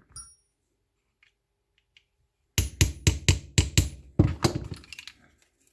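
A hammer tapping a punch to drive the rear frame pin back into a Grand Power pistol: about ten sharp metallic taps in quick succession, roughly four a second, starting a couple of seconds in after a near-silent pause.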